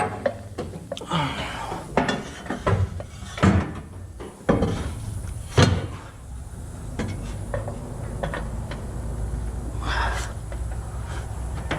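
Scattered metallic clanks and knocks as a car's drive shaft is handled and fitted, several sharp ones in the first six seconds, the loudest about five and a half seconds in. A steady low rumble sets in about four and a half seconds in.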